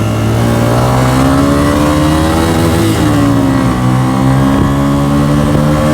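Single-cylinder motorcycle engine running steadily, its pitch rising slowly, then easing off a little and holding.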